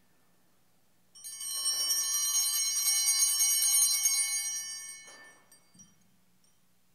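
A set of small altar bells shaken, jangling for about four seconds from a second in and then fading away, marking the priest's Communion from the chalice.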